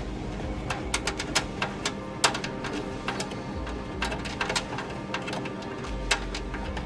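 Background music with scattered sharp clicks and taps, irregularly spaced, from small hardware being handled and screwed in a desktop PC case.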